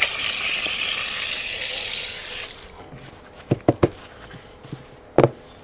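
Tap water running and splashing over hands scrubbing a soapy rugged smartphone, a steady hiss that cuts off suddenly about two and a half seconds in. Then a few short clicks or knocks, three close together and one more near the end, as the phone is handled.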